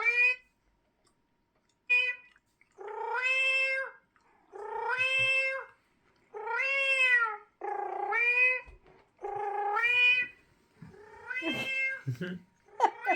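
A cat meowing over and over: about eight long, drawn-out meows, each about a second, with short gaps between them.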